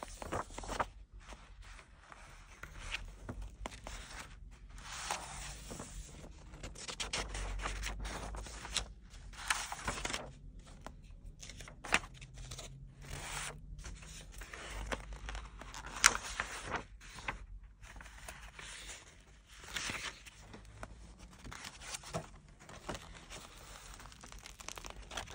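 Pages of a large hardcover book being turned one after another: repeated swishes and rustles of paper, with occasional sharp taps as the pages are handled.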